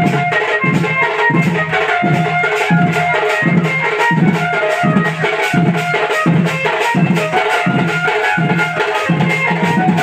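Recorded Sambalpuri folk song playing loudly, with a steady drum beat of about three strokes every two seconds under a melody.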